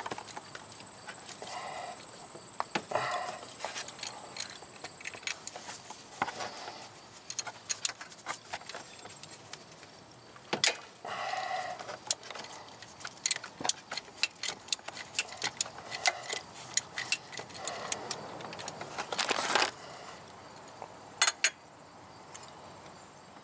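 Ratchet and socket extensions clicking and clinking in short irregular runs as the starter's lower mounting bolt is worked loose, with a few louder metallic knocks.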